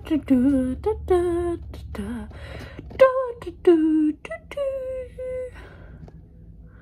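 A girl's voice singing a tune without words, in short phrases and held notes with a wavering pitch, stopping about five and a half seconds in.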